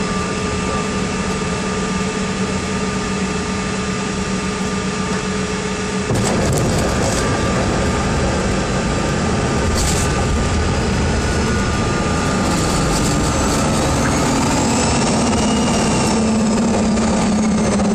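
Cabin noise of a CRJ regional jet on the ground: the steady hum of its rear-mounted turbofan engines and air conditioning, stepping up in loudness about six seconds in, with a whine that rises and then falls in pitch near the end.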